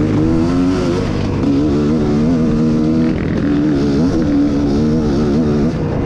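Dirt bike engine running while ridden along a trail, its note rising and falling with the throttle.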